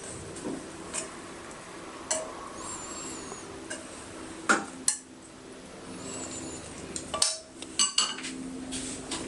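Kitchen utensils clinking and knocking against pans and dishes, with a few sharp clinks spread through it over a faint steady hum.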